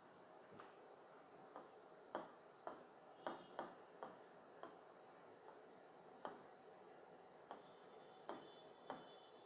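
Pen tip tapping and clicking on the glass of an interactive touchscreen display during handwriting: about a dozen faint, sharp clicks at an irregular pace.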